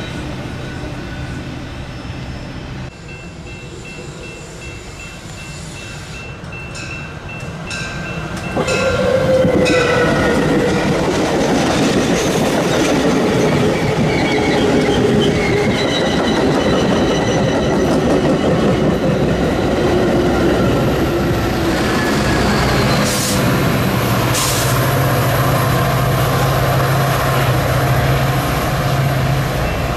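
The tail end of a freight train rolls past, then the sound drops away for a few seconds. About eight seconds in, a Metra bilevel commuter train passes close by: loud rumble of wheels on the rails with squealing tones. In the last several seconds there is a steady low hum from its diesel locomotive.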